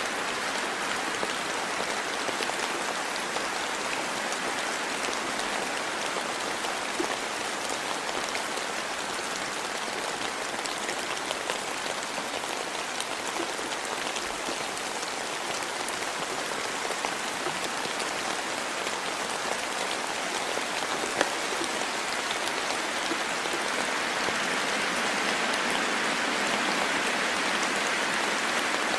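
Steady rain falling, with many small individual drop taps through it. It grows slightly louder near the end.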